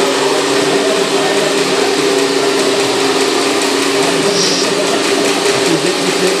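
Steady electric whine of a radio-controlled scale excavator's hydraulic pump and motors as it digs and loads, over a constant hiss of machine noise. One of two held tones drops out about four seconds in, and there is a short high squeak around the same time.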